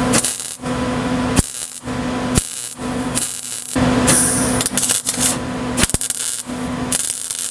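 MIG (wire-feed) welder laying short welds on steel: a crackling, hissing arc in a series of runs about a second long, stopping and starting, with a steady hum underneath.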